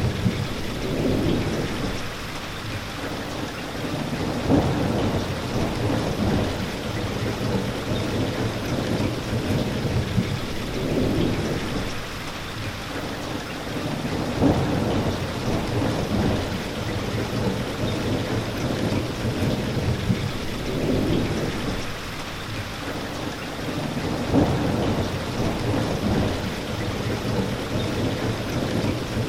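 Steady rain hissing, with low rolling rumbles of thunder that swell and fade every few seconds.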